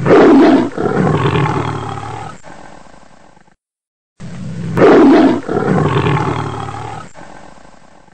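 A big cat's roar, played twice in exactly the same form: each starts loud and deep and fades out over about three seconds, with a brief silence between the two.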